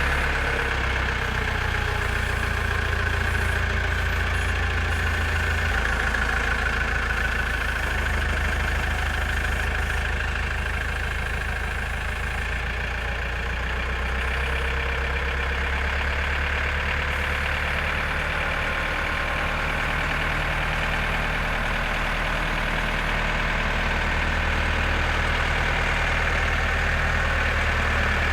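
Diesel engine of a JCB 4CX backhoe loader running steadily, with small shifts in its low hum.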